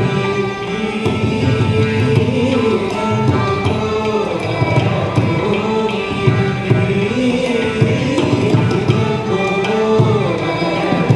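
Carnatic music with a percussion section of mridangam, morsing, ghatam and tabla playing a dense, continuous rhythm under a gliding melodic line.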